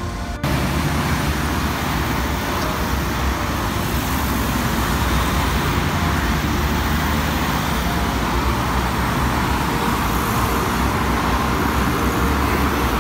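Road traffic on a busy city street: cars driving past with a steady noise of engines and tyres. It sets in abruptly just after the start.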